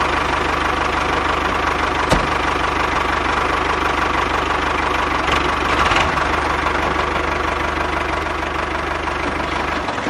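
Mini tractor's engine sound running steadily with a fast, even chug as it pulls its loaded trolley, with a brief click about two seconds in.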